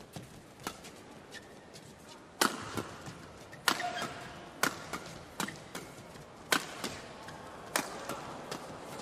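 Badminton rackets striking the shuttlecock in a fast men's doubles rally: about ten sharp cracks at uneven spacing, roughly one a second, some in quick pairs.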